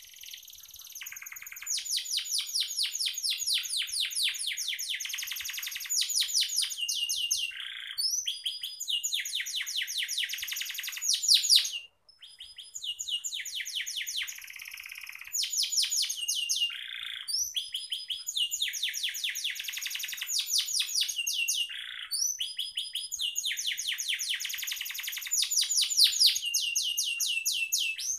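Domestic canary singing a long, fast, high-pitched song of rapid trills and repeated whistled notes, with a brief pause about twelve seconds in.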